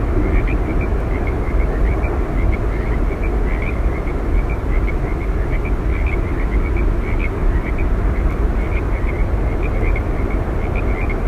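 Steady, loud rushing roar of Yosemite Falls, a waterfall, with many short high chirps scattered irregularly through it.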